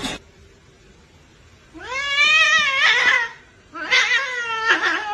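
Domestic cat meowing twice: two long, drawn-out meows about a second and a half each, the second one trailing down in pitch at the end.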